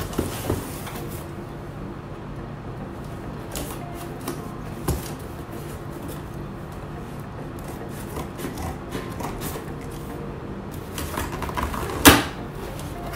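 Scissors cutting through packing tape on a cardboard shipping box, with scattered small snips, scrapes and taps of cardboard. Near the end, a short, loud tearing sound as the taped flap is pulled open.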